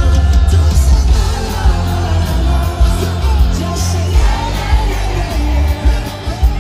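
Live pop band playing with heavy bass and a singing voice, heard from within a stadium crowd that yells and shouts along.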